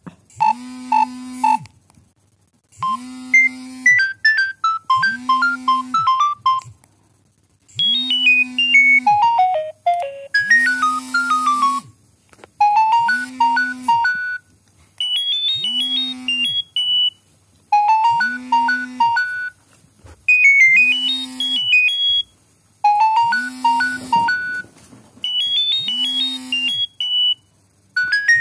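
Nokia 7210 polyphonic ringtones: synthesized melodies of quick stepping high notes over a repeated low tone, in short phrases with brief pauses between them.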